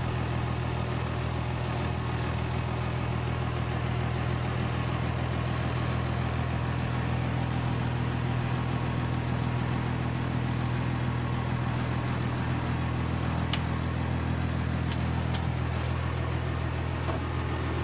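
Ford Lehman 120 hp six-cylinder marine diesel idling steadily at about 900 rpm, heard through the closed engine-room floorboards as a low, even hum.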